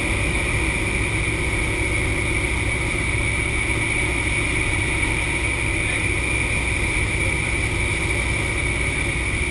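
Antonov An-2's nine-cylinder radial engine and propeller running at a steady cruise drone, heard from inside the cabin beside the open jump door, with a constant high whine over a deep rumble.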